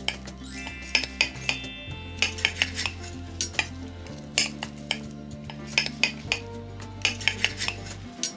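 Knife and fork cutting through a baked pancake, sausage and cheese dish on a plate, with repeated irregular sharp clicks of metal against the plate. Quiet background music runs underneath.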